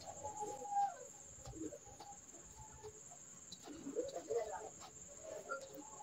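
Domestic chickens clucking faintly in short scattered calls, a cluster of them about four seconds in, over a steady high-pitched whine.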